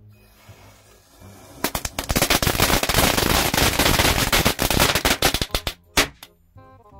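Diwali firecracker going off: a dense, rapid string of sharp cracks lasting about four seconds, then two loud single bangs near the end, after a soft fizz from the burning matchstick chain.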